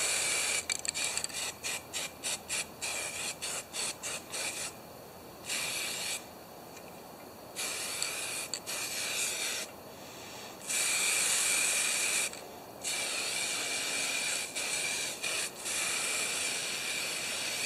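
Aerosol spray-paint can hissing in bursts: a quick run of short squirts over the first four seconds or so, then longer sprays lasting one to two seconds each with brief pauses between.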